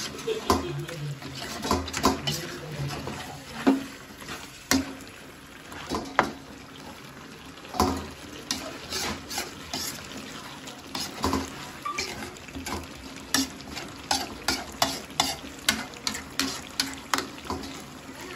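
A metal spatula scrapes and knocks against a large metal kadai as chicken pieces in masala are stirred and turned. The pan sizzles underneath. The strokes come irregularly at first, then faster and more evenly in the last few seconds.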